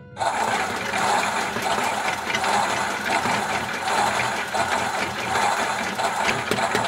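Toy washing machine running its wash cycle: a steady whirring, swishing noise that starts abruptly as it is switched on, with a quick run of regular clicks near the end.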